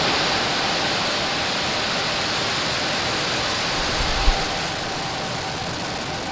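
Falcon 9 first stage's nine Merlin 1D engines at liftoff: a steady, dense rushing roar of rocket exhaust, easing slightly about five seconds in.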